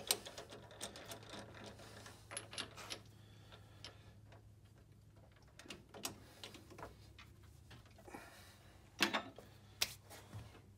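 Scattered light metal clicks and taps of a metal lathe being set up by hand, with the chuck and tool post being tightened, over a faint steady low hum. A few louder knocks come about nine seconds in.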